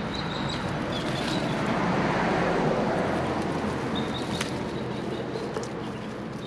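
A passing vehicle's noise swells and fades over a few seconds, loudest about halfway through. A thin, high bird call sounds near the start and again about four seconds in.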